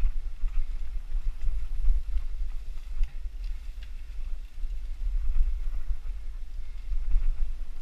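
Mountain bike riding over rocky, leaf-covered dirt singletrack: heavy low wind buffeting on the helmet-camera microphone, with the rumble of tyres and scattered clicks and rattles from the bike over rocks.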